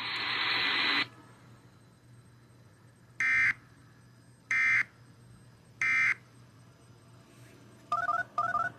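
About a second of radio hiss, then three short buzzy data bursts about a second and a half apart: Emergency Alert System end-of-message (EOM) tones closing the warning. Near the end come two quick stepped beep groups.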